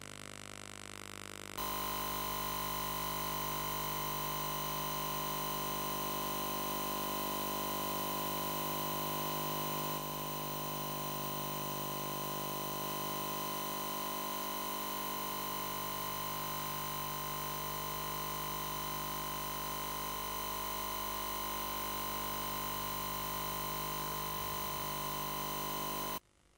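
Steady electrical hum and hiss from VHS tape playback, made of many fixed tones with one clear whistle-like tone standing out. It steps up a little about a second and a half in and cuts off abruptly just before the end.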